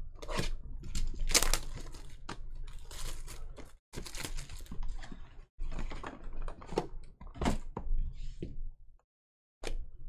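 A foil pack of 2020 Bowman's Best trading cards is torn open and the cards are handled. The wrapper crinkles and tears, and there are many short clicks and rustles as cards slide against each other, with the sound cutting out briefly a few times.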